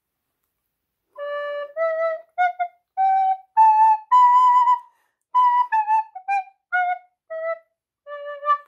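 A plastic recorder plays a scale of single notes, starting about a second in. The notes step up in pitch and then back down, each uncovered finger hole shortening the sounding tube and raising the note.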